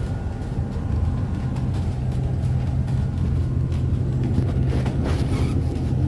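Steady low drone of a double-decker bus driving, heard from inside the passenger cabin on the upper deck.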